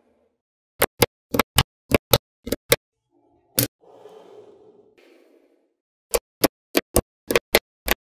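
Small magnetic balls snapping together with sharp clicks as pieces are placed. The clicks come in two quick runs of about eight each, with a single click and a faint rustle between them.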